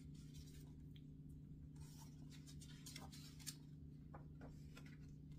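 Near silence: a steady low hum of room tone, with faint paper rustling and light ticks as a picture-book page is turned.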